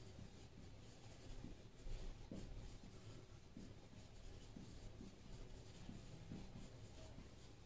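Marker pen writing on a whiteboard: faint, irregular short squeaks and taps of the tip as strokes are drawn.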